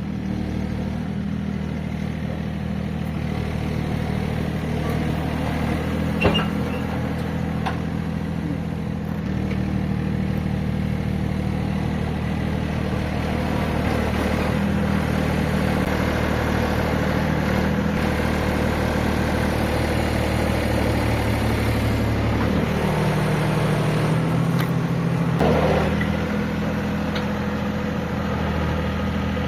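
Diesel engine of a farm machine running steadily under load. Its pitch drops for a few seconds about three-quarters of the way through, then comes back up, with a knock or two near the start.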